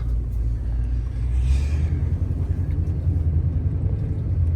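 Toyota Tundra pickup's engine running at low speed in four-wheel drive on snow, a steady low rumble that grows a little louder about a second in. A short hiss sounds about a second and a half in.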